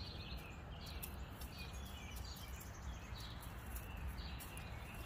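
Small birds chirping in repeated short bursts of high calls, over a steady low outdoor rumble.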